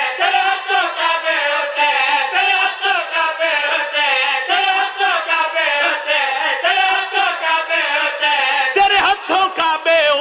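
Men chanting a devotional lament (nauha) through a microphone, one lead voice with others joining in. A stronger voice takes over near the end.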